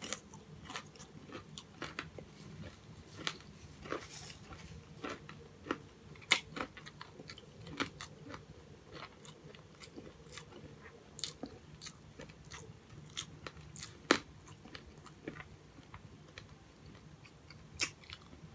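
Close-miked chewing and crunching of crispy breaded fried pork chop: irregular small crisp crunches and mouth sounds, with a couple of louder snaps about six and fourteen seconds in.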